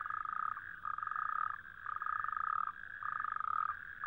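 Male toads calling: a row of trills, each under a second long and about once a second, over a steady chorus of other toads calling further off. It is the males' mating and territorial call, made with the inflated throat sac.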